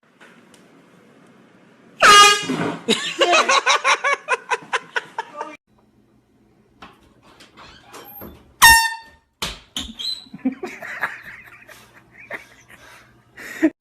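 Handheld air horn blasting in a small room, loud, about two seconds in, followed by a few seconds of quick repeated pulses. A second short horn blast comes a little before the nine-second mark.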